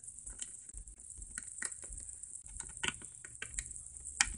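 Light, irregular taps and clicks of small plastic Littlest Pet Shop figures being handled and hopped along a surface, with a sharper click near the end.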